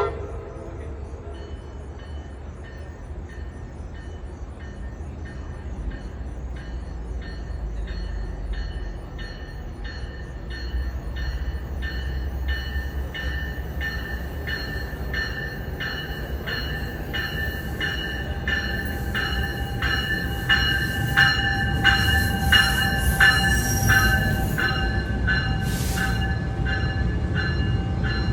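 A New Jersey Transit train coming into a station. A short horn blast sounds right at the start, then a low rumble builds steadily as the train draws near, with a regularly repeating high ringing throughout and a steady tone joining in over the last third.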